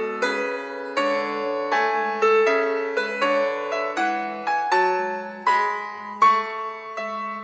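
Xiaomi Redmi Note 9T 5G alarm ringtone playing a gentle piano melody: single struck notes, each fading away, over a held lower note.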